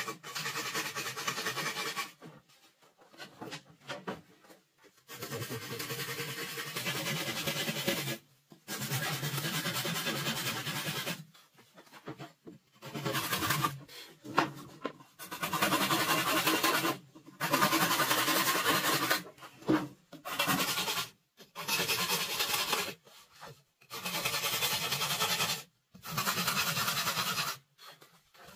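Machete blade scraping and shaving a green bamboo pole, in a series of long strokes of a second or two each with short pauses between them.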